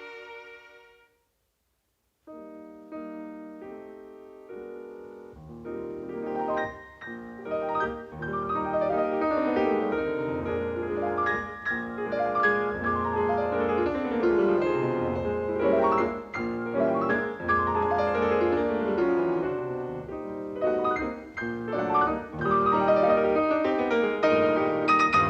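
Cartoon score piano music. The previous piece fades out, there is a brief silence, and then come a few quiet held chords. From about five seconds in, a lively classical-style piano passage plays with quick runs up and down the keyboard.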